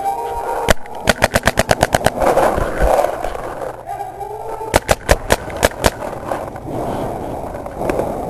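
Paintball marker firing: one shot, then a rapid string of about ten shots in a second, and a few seconds later a second quick string of about six.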